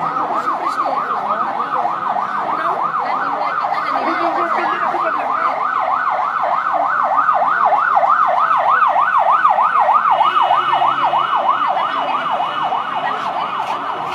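Emergency vehicle siren in a fast yelp, sweeping up and down about three or four times a second. It grows louder toward the middle and eases off near the end.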